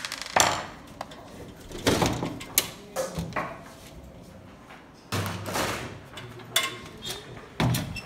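Steel desktop PC case being handled and opened: a series of scrapes, clanks and knocks as the side panel is slid off and the tower is laid on its side.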